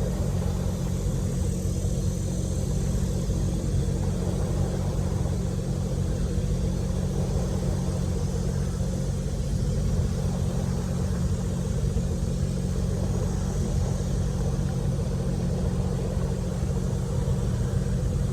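Boat motor idling steadily, a constant low engine hum with no change in speed.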